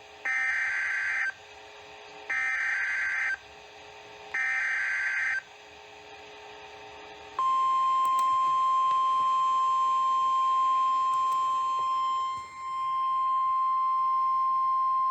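NOAA Weather Radio Emergency Alert System signal: three one-second SAME digital header bursts, about two seconds apart, then from about seven seconds in the steady 1050 Hz warning alarm tone. Together they mark the start of a new alert, here a tornado warning.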